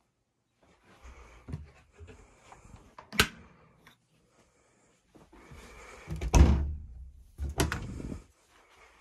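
Wooden cupboard doors being handled: a sharp latch click about three seconds in, then a heavy thump and another click as the doors under the sink are swung open, with rustling handling noise between.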